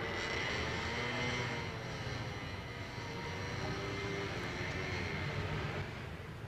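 Steady engine noise of passing motor traffic: a low rumble with a faint high whine, dropping off about six seconds in.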